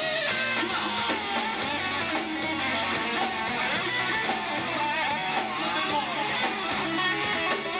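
Live rock band playing, with distorted electric guitar over bass and drums.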